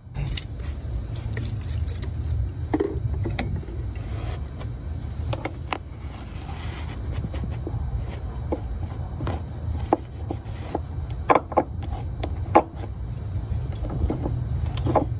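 Cleaning a boat hull fitting with an alcohol spray bottle and a microfiber towel: scattered short clicks and scrapes of handling and wiping, with a few louder ones in the middle, over a steady low rumble.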